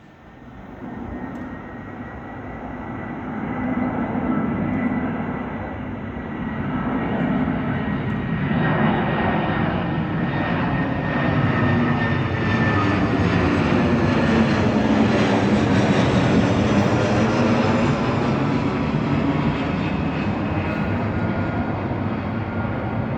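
Airbus A320-214 jet airliner's CFM56 turbofan engines on landing approach, passing low overhead. The sound builds over the first few seconds to a loud, steady rumble with a high whine, and has a swirling, phasing sweep as the aircraft goes over.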